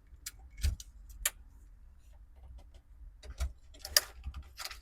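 Scattered clicks and light knocks of hand tools and parts being handled during interior disassembly of a car, with a sharp click about four seconds in.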